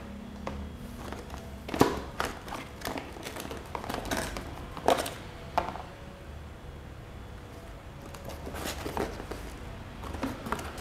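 Cardboard laptop box and its contents being handled: scattered knocks, taps and rustles as the packing is moved and a charger and its cable are lifted out and set down. The sharpest knocks come about two seconds in and again near five seconds.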